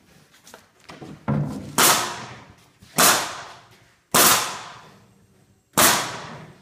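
Pneumatic nail gun firing into the corner joints of a wooden honey super held in an assembly jig. There are several sharp shots about one to one and a half seconds apart, each ringing off in the shop.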